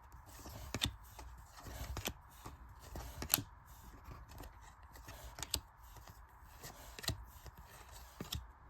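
Trading cards being handled and flipped through by hand: light rustling with scattered sharp clicks and taps, the sharpest about three and a half seconds in.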